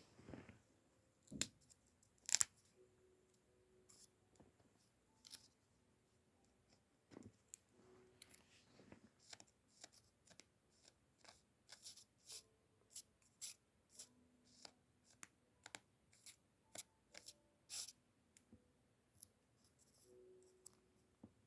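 A quiet room broken by a series of short, sharp clicks. They are scattered over the first few seconds, the loudest about two seconds in, then come roughly once or twice a second through the second half. Faint, muffled short tones sound underneath.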